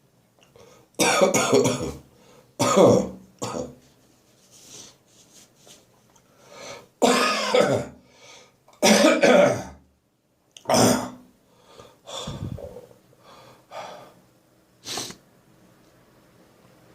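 A man's dry coughing, lingering after bronchitis, in a run of separate loud coughs and coughing fits with throat clearing between them. The last cough comes about fifteen seconds in.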